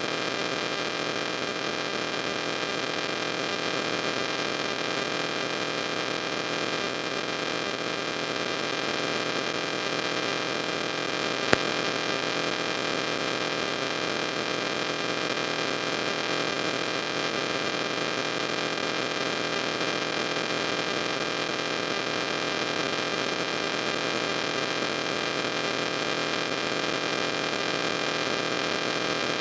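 Steady electrical mains hum with hiss, with a single sharp click about twelve seconds in.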